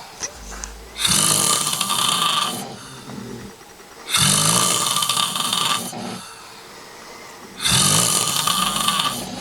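A person snoring loudly: three long snores about three and a half seconds apart, with quieter stretches between them.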